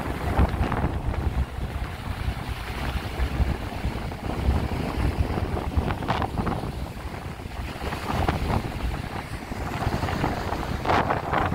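Sea waves washing and breaking against shoreline rocks, with strong wind buffeting the microphone in a heavy low rumble; louder surges of splash about six and eleven seconds in.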